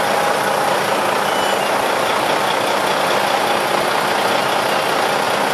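Steady, loud machinery noise in a yacht's engine compartment where a Seakeeper 16 gyrostabiliser is running, its sphere tilting to and fro as it stabilises the boat.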